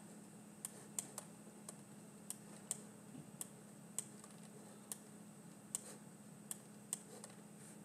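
A dozen or so light, sharp clicks at irregular spacing from working a computer's mouse and keys, over a faint steady hum.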